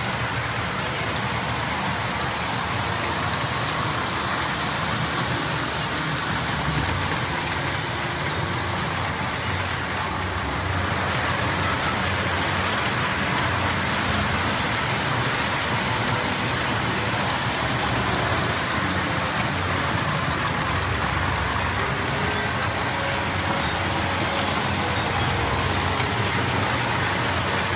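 O gauge electric toy trains running on their track: a steady rolling rumble of wheels and motors, with a hiss over it.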